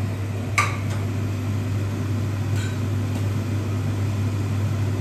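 A steady low mechanical hum, like a kitchen fan or appliance running. A sharp click comes about half a second in, and a fainter tick a couple of seconds later.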